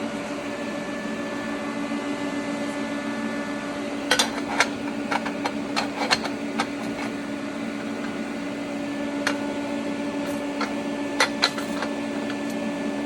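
Steady machine hum holding several fixed tones, with scattered light clicks and taps from work on metal parts, clustered in two bunches.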